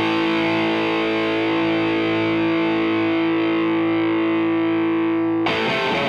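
Background rock music: a distorted electric guitar holding a sustained chord, with a new chord struck about five and a half seconds in.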